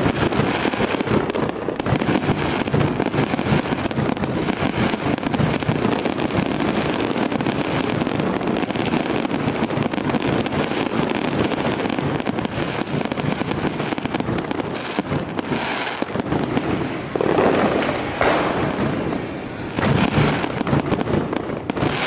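Ground fireworks spraying sparks on paving, fizzing and crackling in a dense, steady crackle.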